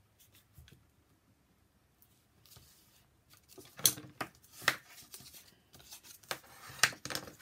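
Light cardstock being folded and creased by hand. Quiet at first, then a few sharp crackles and scrapes of the paper in the second half.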